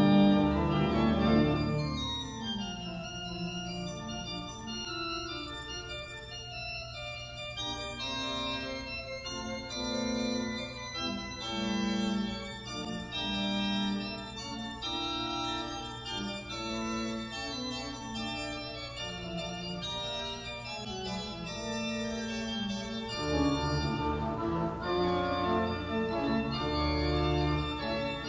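Church organ playing sustained chords. A loud full chord opens, the music drops to softer held chords, and the deep bass notes come back in, fuller, about 23 seconds in.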